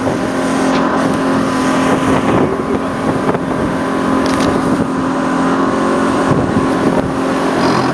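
Small boat's motor running steadily under way, a constant droning tone, with the rush of wind and water over it.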